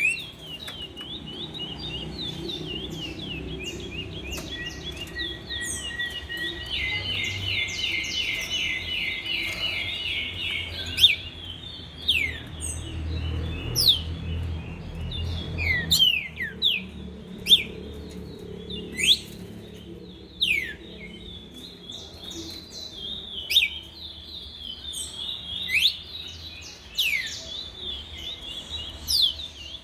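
Several caged songbirds singing at once: a continuous chattering trill with a dense buzzy trill early on, then loud, sharp down-slurred whistles every second or two.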